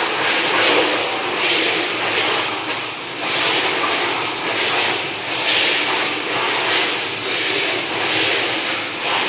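Pressure-washer lance spraying water at high pressure onto the floor and poultry drinker lines: a loud, steady hiss that swells and eases about once a second.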